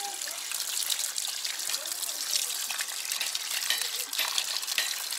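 Running tap water pouring into a plastic basin of whole fish, a steady splashing hiss broken by small splashes as hands rinse the fish.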